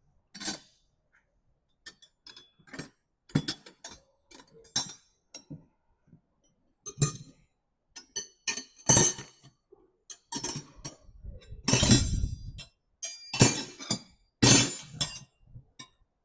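Metal wrenches clinking and clanking irregularly as someone rummages through a pile of hand tools, picking them up and setting them down. The clanks come thicker and louder in the second half.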